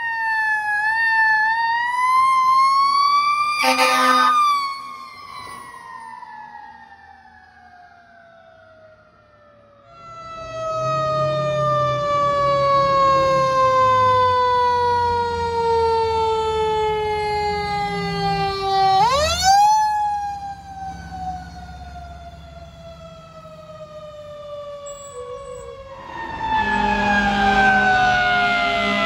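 Fire engine sirens in turn, each winding down slowly in a long falling wail and then spinning back up sharply, with a brief burst about four seconds in.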